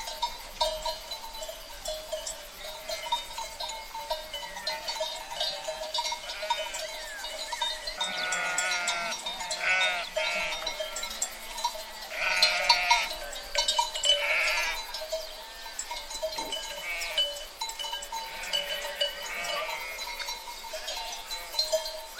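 A flock of sheep bleating, with several calls overlapping at once. The bleats come thickest and loudest about a third of the way in and again near the middle, then thin out toward the end.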